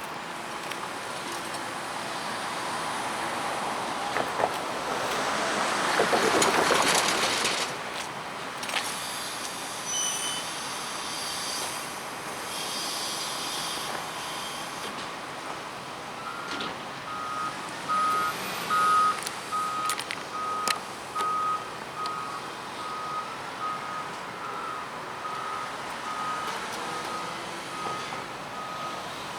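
Back-up alarm on a track maintenance vehicle beeping about once a second, starting about halfway through. Earlier, a broad machinery noise swells to its loudest a few seconds in, then falls away.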